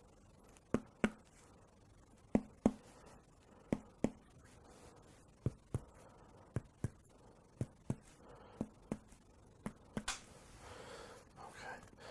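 Hands working on bare skin during abdominal palpation: a string of sharp light clicks, mostly in pairs, repeating every second or so, with a soft hiss near the end.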